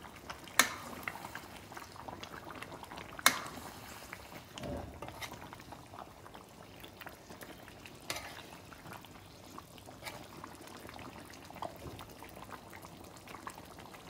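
Chicken curry boiling in a karahi over high heat, a steady bubbling, while a metal spoon stirs it and knocks sharply against the pan about half a second in and again about three seconds in, with a lighter clink around eight seconds.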